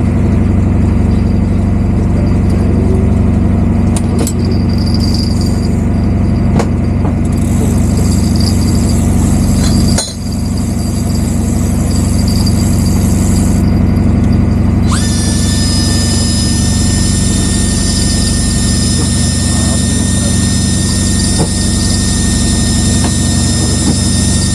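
Boat engine running steadily with a low drone. About fifteen seconds in, a steady high-pitched whine starts with a quick rise and holds to the end.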